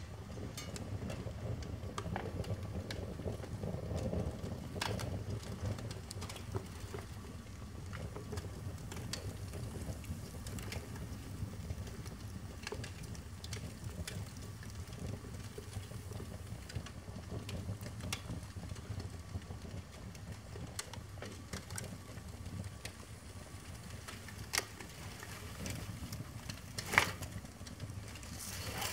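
Paper stamp album burning in open flames: a steady low rush of fire with scattered crackles and pops, one sharp pop the loudest near the end.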